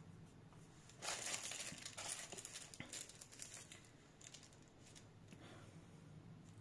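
Crinkling and crackling of a self-adhesive rhinestone sheet as a strip of rhinestones is peeled off its backing, for about three seconds starting a second in, with fainter rustling after.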